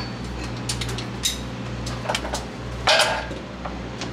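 Several sharp metallic clinks and clanks from tie-down hardware being worked loose under a pulling tractor, the loudest about three seconds in, over a steady low hum.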